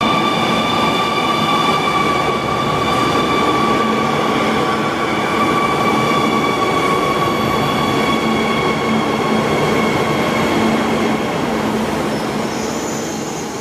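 A Chinese CRH high-speed electric train running along a station platform: a loud, steady rush with several high whining tones that drift slightly down in pitch, easing off near the end.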